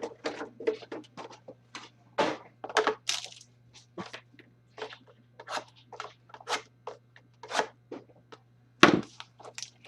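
Trading-card pack wrappers and cards being handled and torn open, a quick string of short crinkling, crackling bursts with the loudest sharp one near the end, over a faint steady electrical hum.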